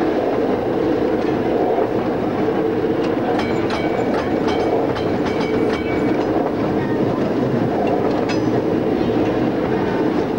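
Interurban tram running along the line, heard from inside the driver's cab: a steady rumble of wheels on rail with scattered clicks and clatter over the track. A faint high whine runs through the middle.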